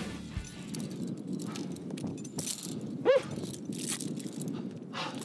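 Climbing gear (carabiners and harness hardware) clinking and shoes scuffing on granite slab as a climber tops out, over a steady low wind rumble. A short pitched cry rises and falls about three seconds in and is the loudest sound.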